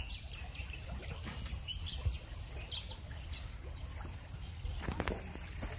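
Light sloshing of water around a submerged bamboo fish trap as hands work at its base, with a few knocks and splashes near the end. Faint bird chirps and a thin steady high tone sit behind it.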